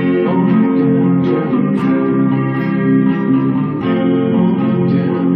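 Live acoustic music, an instrumental passage of plucked and strummed strings with sustained chords and no singing.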